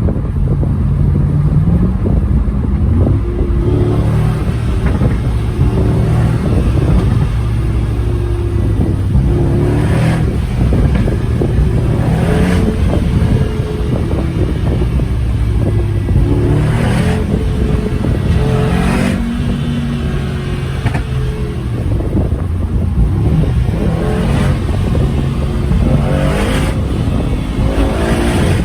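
Brabus G800's twin-turbo V8 repeatedly accelerating, its pitch climbing and then dropping back several times, with short loud bursts of noise at the peaks.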